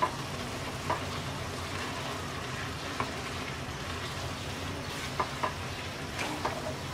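Wooden spatula stirring boiled chana dal and spinach in a stainless steel karai over a steady sizzle. The spatula knocks lightly against the pan a few times.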